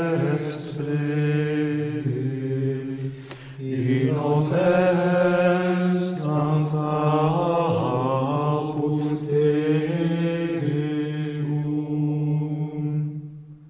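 A small group of men's voices, Trappist monks among them, singing Gregorian chant in unison without accompaniment, in long held notes. There is a short breath gap about three and a half seconds in, and the last note fades out near the end.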